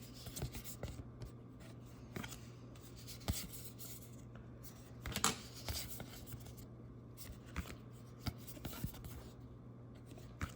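Trading cards being handled and flipped through: light rustling and sliding of card stock with scattered small ticks and taps, the biggest rustle about halfway through, over a steady low hum.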